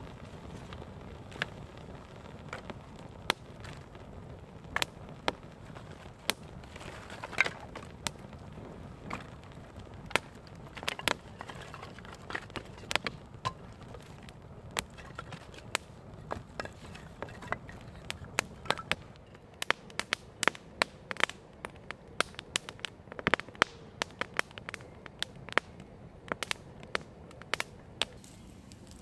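Campfire of dry twigs and sticks crackling, with many sharp pops and snaps that come thicker in the last third.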